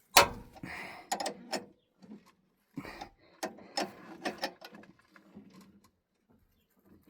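Irregular metallic clicks and knocks of tools and a puller working a pulley off a ZMZ-409 engine's shaft.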